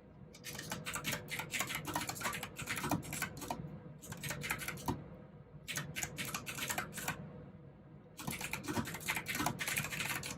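Typing on a mechanical keyboard with clicky blue switches: four quick runs of keystrokes with short pauses between them.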